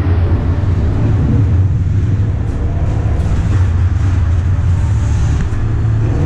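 Steady, loud low hum and rumble of an ice arena's machinery, with a faint skate scrape on the ice about five seconds in.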